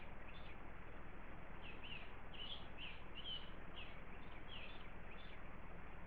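Birds chirping, a dozen or so short high calls, most of them between about two and five seconds in, over a steady hiss.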